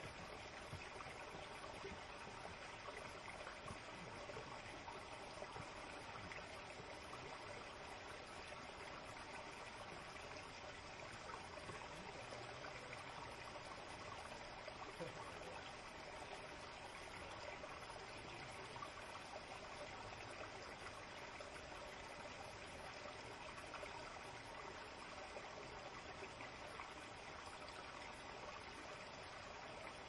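A shallow forest stream flowing and trickling over roots and stones: a faint, steady rush of water.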